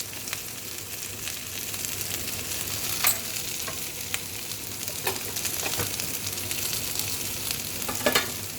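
Bitter gourd (karela) frying in oil in a wok, a steady sizzle with spice powders in the pan. A few sharp clicks and scrapes of a cooking utensil stand out against it.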